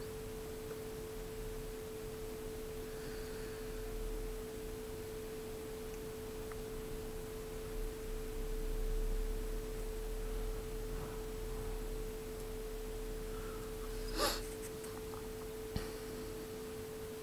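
A steady hum at one pitch, with a weaker lower tone beneath it, and a short rustling noise about fourteen seconds in.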